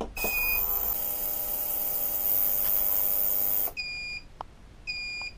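Digital ultrasonic cleaner running: a steady pitched hum with a high whine above it, with a beep from its control panel as it starts. The running cuts off suddenly after about three and a half seconds, followed by two short beeps about a second apart.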